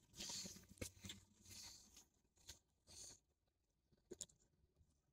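Near silence: faint, irregular scuffs of footsteps on a concrete sidewalk and rustling of the handheld camera, then two quick faint clicks a little after four seconds in.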